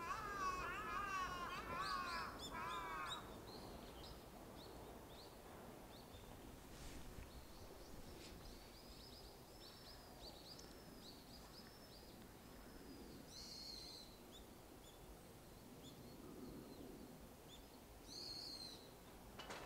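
Birds calling: a fast run of harsh, repeated calls in the first three seconds, then a string of thin, high notes in the middle and two short high calls near the end, all faint over a quiet outdoor background.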